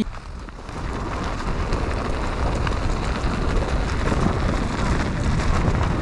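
Mountain bike rolling fast down a plastic-tile slope: tyre roar on the matting mixed with wind rushing over the camera microphone, a steady noisy rush that builds within the first second as the bike picks up speed.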